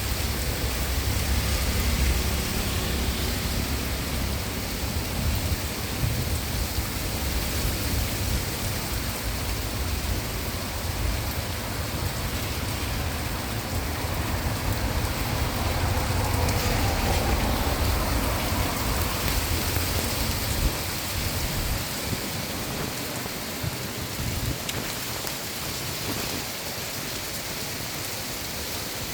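Heavy rain falling steadily in a night thunderstorm, with a low rumble underneath that dies away about two-thirds of the way through.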